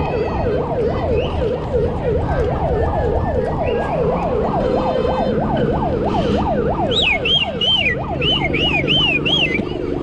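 Emergency vehicle siren in a fast yelp, its pitch sweeping up and down about three times a second over a low rumbling noise; a higher warbling tone joins briefly about seven seconds in.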